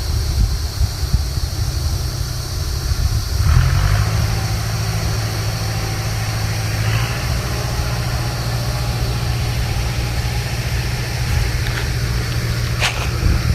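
Cicada calling in a steady high buzz, over a louder low rumble that settles into a steady hum a few seconds in. A few sharp clicks near the end.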